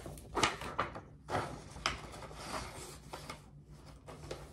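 Sheet of printer paper rustling and crinkling as it is handled and set down, in a string of short bursts.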